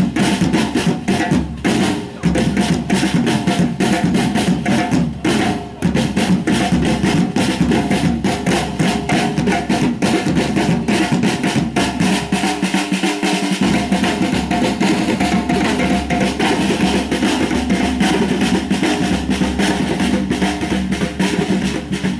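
Loud percussion music: fast, dense drumming with a steady driving beat and low drum hits, with no pauses.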